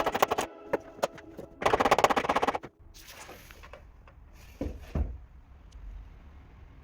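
Background music that breaks off, with a few sharp clicks and a short burst of music, then a low hum with two soft thumps about three-quarters of the way through.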